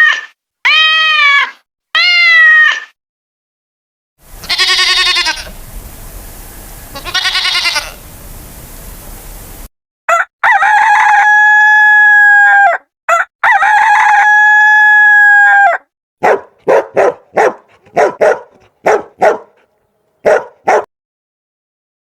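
A string of farm-animal calls: three short rising-and-falling calls at the start, then rooster crowing, two long held crows about ten to sixteen seconds in, and a run of short hen clucks near the end.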